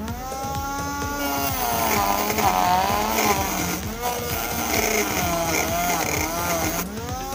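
Small DC motor of a homemade chilli cutter, run from a single lithium cell, whining as it spins up. Its pitch dips and wavers twice as a green chilli is pushed into the spinning blade, and near the end it slows and picks up again.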